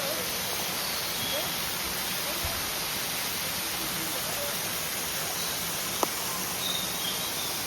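Waterfall rushing steadily, an even hiss of falling water, with one short sharp click about six seconds in.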